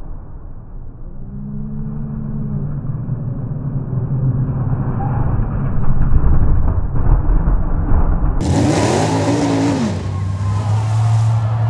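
Modified mud-racing trucks' engines running hard through a mud pit. About two-thirds of the way in, an engine revs up and drops back, then holds a steady drone.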